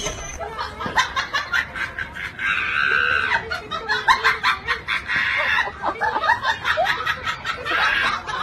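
People laughing, with bits of voice and scattered short clicks and knocks.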